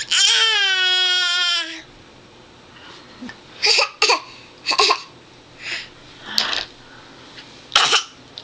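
A baby's voice: one long, loud, drawn-out cry that slides slightly down in pitch, followed by a series of about six short vocal bursts.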